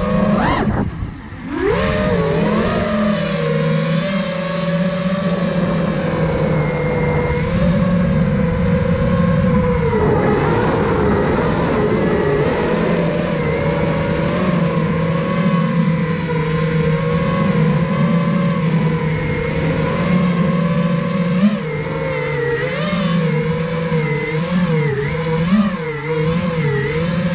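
iFlight Nazgul Evoque F5 5-inch FPV quadcopter's brushless motors and propellers whining, the pitch rising and falling with the throttle. About a second in the throttle is cut briefly and then punched back up in a rising whine.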